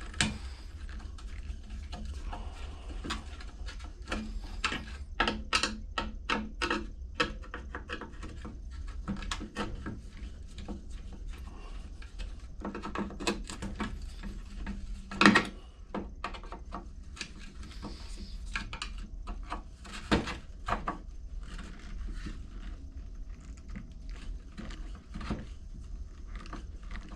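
Screwdriver work on a small lawn mower carburetor: irregular small metal clicks, taps and scrapes as Phillips screws are backed out of its top cover, with a sharp louder knock about fifteen seconds in, over a steady low hum.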